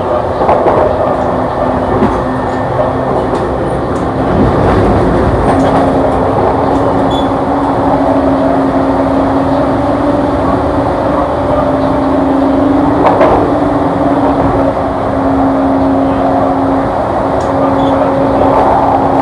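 JR East E235-series electric train running on the rails, heard from inside the car: a steady rumble of wheels and running gear, with a continuous hum from the traction motors.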